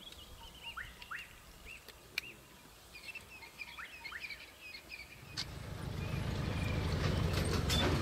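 Small birds chirping in short, quick calls, some sweeping upward. From about five seconds in, a low rumble grows steadily louder.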